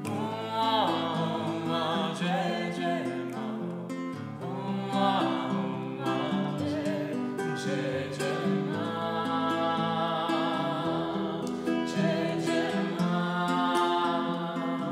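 A woman and a man singing a song together, accompanied by an acoustic guitar.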